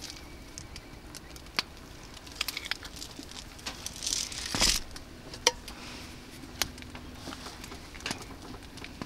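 Scattered small crackles and clicks from a wood-burning tent stove with a pot of soup simmering on it, with a brief louder rustle about four and a half seconds in and a spoon stirring the pot near the end.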